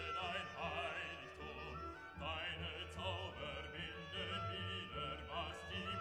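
Background classical music in an operatic style, with held notes and a wavering vibrato melody line.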